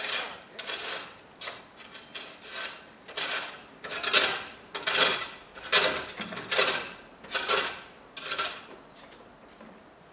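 A series of short scraping strokes, about one a second, louder in the middle and stopping about nine seconds in.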